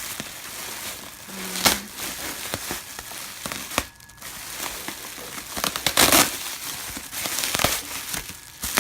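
Packaging wrapping crinkling and rustling as it is handled and pulled open, in irregular crackles with a louder stretch of rustling about six seconds in.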